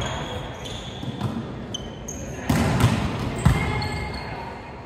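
Indoor volleyball play on a gym court: sneakers squeak on the floor several times, and the ball is hit with sharp smacks about two and a half and three and a half seconds in, the second the loudest, with players' voices underneath.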